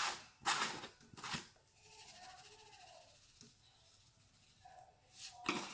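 Adobo seasoning shaken from its shaker container over raw lamb chops: about four quick shakes in the first second and a half, then more shakes near the end.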